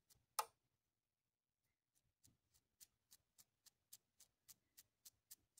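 Faint, quick ticks of a toothpick drawn across the bristles of a paint-loaded brush, flicking speckles of watery tempera paint. There is one louder tick about half a second in, then a pause, then a run of ticks at about three or four a second.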